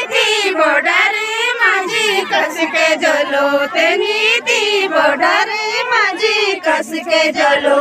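Several women's voices singing a Garhwali jhumailo folk song together, the melody rising and falling without a break.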